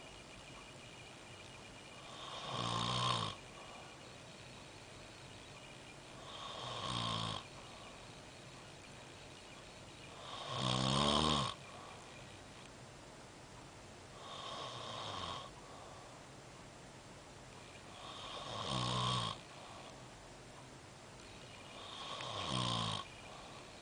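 A sleeping person snoring loudly: six snores, one about every four seconds, each swelling over a second or so and then cutting off abruptly.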